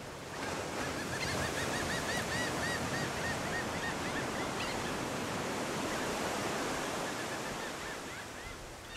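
Surf washing steadily on a beach, with a bird giving a quick run of short repeated calls over the first few seconds and a few more near the end.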